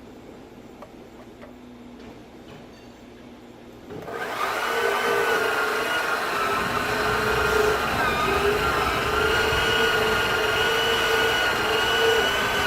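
Portable band saw starting about four seconds in and running steadily as it cuts through doubled 2x4 framing for a chine notch, its pitch sagging briefly about halfway through the cut.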